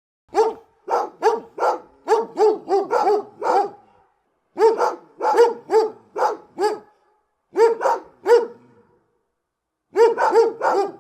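A big dog barking close by, in quick runs of sharp barks with short pauses between them. There is a run of about nine barks, then six, then three, then four near the end.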